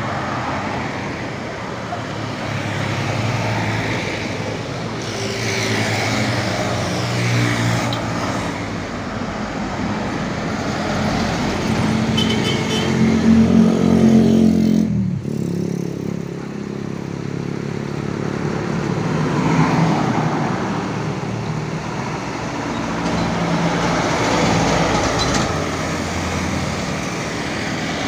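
Road traffic passing close by: cars, motorbikes and trucks driving past one after another, the engine and tyre sound swelling and fading as each goes by. The loudest is an engine hum about twelve to fifteen seconds in, which breaks off abruptly.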